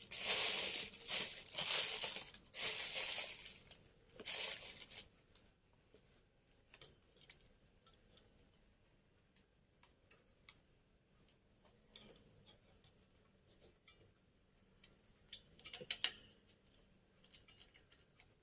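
Plastic packaging and parts rustling and crinkling in several loud bursts over the first few seconds, then sparse small clicks and taps as pieces are handled, with another short rustle of clicks near the end.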